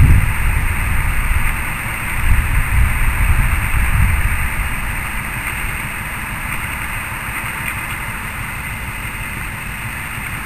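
SM30 shunting diesel locomotive's engine running at low revs as it moves off slowly with tank wagons in tow. The deep rumble is heavier in the first four seconds or so, then settles to a steady run.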